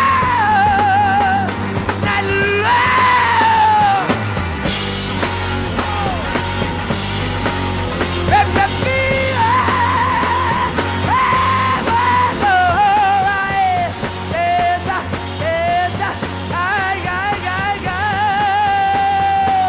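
Hard rock trio playing live: distorted electric guitar, bass and drums, with a high, wordless wailing vocal that slides and wavers over the band.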